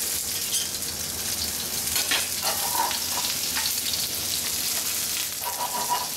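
Butter sizzling and foaming in a hot frying pan of sautéed cèpes (porcini mushrooms), with a metal spoon clicking and scraping against the pan as the mushrooms are basted.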